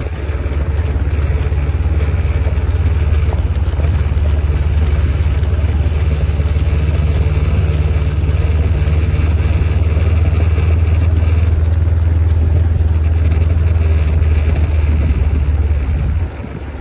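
Vehicle engine running steadily at low speed, a loud low rumble mixed with wind noise on the microphone. It drops off abruptly shortly before the end.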